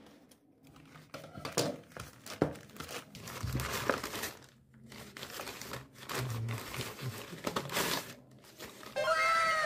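Plastic courier mailer crinkling and crackling as it is cut with scissors and pulled open by hand, with a few sharp snips. Near the end a falling whistle-like tone sets in.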